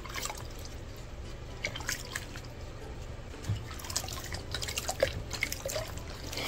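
Water splashing and dripping in a plastic wash basin as gloved hands wash a hen's soaked vent feathers, in many small irregular splashes.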